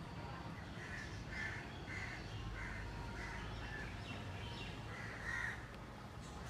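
A crow cawing in a string of short, repeated caws, about two a second, the loudest near the end, over a low steady background rumble.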